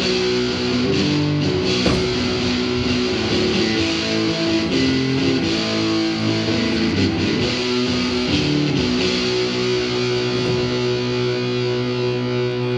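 Electric guitar music with sustained, shifting notes over a low drone, settling into a steady held chord about nine seconds in.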